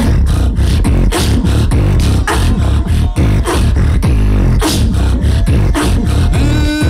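Beatboxing through a microphone and PA: heavy deep bass under a fast, dense run of snare and click strokes. Near the end a held pitched vocal tone comes in over the rhythm.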